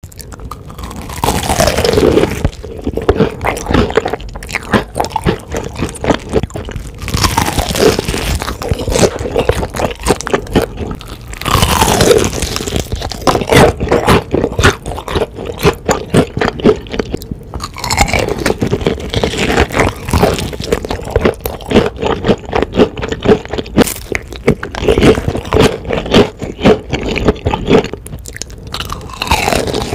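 Close-miked biting and chewing of crispy battered fried chicken: loud crackly crunching of the coating, with a fresh bite every several seconds followed by rapid chewing crunches.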